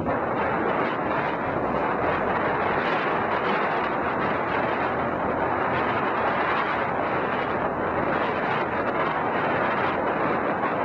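Onboard sound of a BMW F800GS climbing a dirt hill: its parallel-twin engine running under load, blurred into a steady rush with wind and tyre noise on the microphone.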